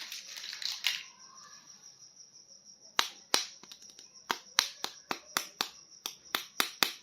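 Sharp clicks and taps of hard plastic being handled, starting with a little rustling and then, after about three seconds, coming in a quick irregular run of some fifteen clicks, about three or four a second.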